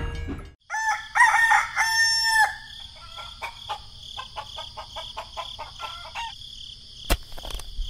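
A rooster crows once, starting about a second in, followed by a run of light clicks over a steady high tone, with one sharp click near the end.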